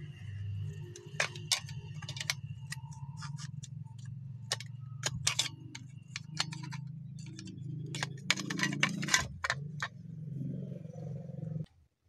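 Toyota Corolla plastic interior door handle assembly clicking and knocking as it is handled and turned over, with a quick run of clicks about two-thirds of the way through. A steady low hum runs underneath and stops just before the end.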